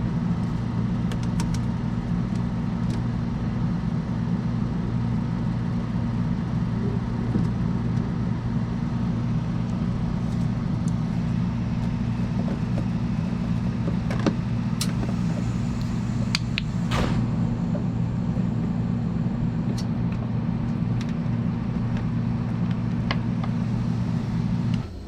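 Refrigeration unit of a cold table running with a steady low hum and occasional small clicks and ticks. The hum cuts off suddenly near the end, as when the unit is switched off.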